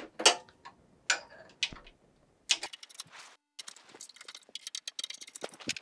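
Hex-bit screwdriver tightening the bolts of a metal router mount: scattered clicks and taps, then a quick run of small clicks in the second half.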